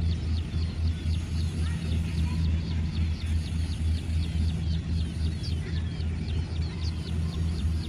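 Harvester engine running steadily with a low, pulsing hum, while short high chirps repeat several times a second over it.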